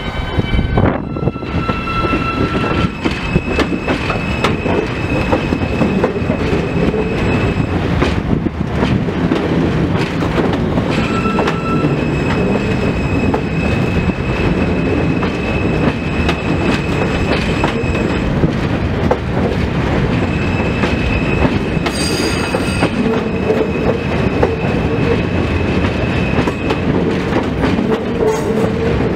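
New York City subway F train of stainless-steel cars rolling into the station alongside the platform, with a steady rumble and clatter of wheels over the rails. A high whine comes and goes three times as the cars pass.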